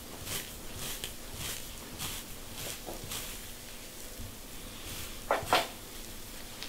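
A comb scratching over a dry, dandruff-flaked scalp through short, tightly coiled hair, with a scratchy stroke about twice a second. About five seconds in come two louder, sharper sounds in quick succession.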